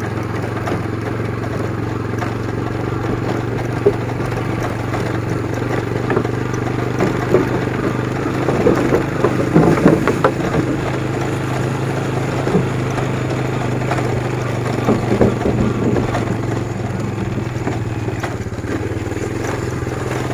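Small motorcycle engine running at a steady low speed while riding, a constant hum. Irregular knocks and rattles come about a third of the way through and again later.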